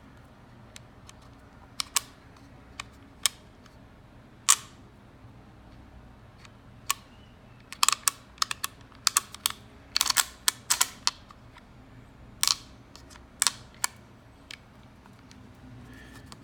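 Irregular sharp clicks and taps of a Xiaomi Wiha precision screwdriver kit's metal case and parts being handled, scattered at first, then a quick run of clicks about halfway through.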